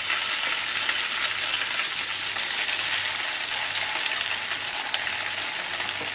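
Flour-battered chicken pieces deep-frying in hot oil in a small stainless-steel saucepan: a steady, dense sizzle with fine crackling from the bubbling oil.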